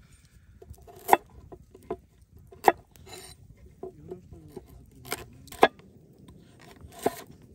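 Large kitchen knife slicing a raw carrot on a wooden cutting board: five loud, irregularly spaced knocks of the blade striking the board, with softer taps between.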